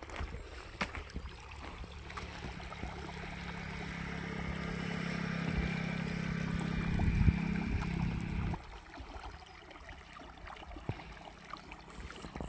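Irrigation water gushing from the open end of a plastic pipe and gurgling over a flooded field. A steady low hum with a hiss grows louder over several seconds, then cuts off suddenly about eight and a half seconds in.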